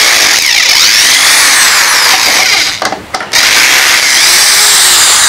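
Power screwdriver running in two spells with a short break about three seconds in, its whine rising and falling, as it backs out the two screws holding a washing machine's door lock switch.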